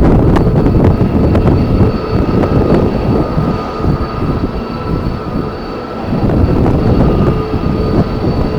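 Strong wind buffeting the microphone in gusts, over the steady whine of jet airliner engines.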